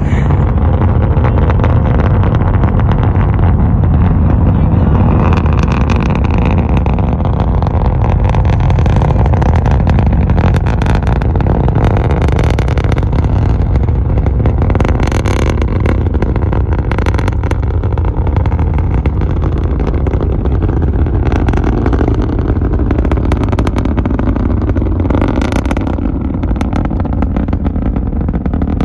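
Falcon 9 rocket's nine Merlin engines during ascent: a loud, steady low rumble with irregular crackling.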